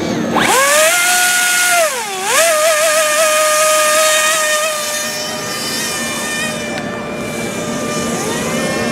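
Electric motor and propeller of a Bixler RC glider spooling up to full throttle with a high, steady whine, dipping briefly in pitch about two seconds in. The whine weakens after about five seconds as the plane is hand-launched and flies off, then rises again near the end.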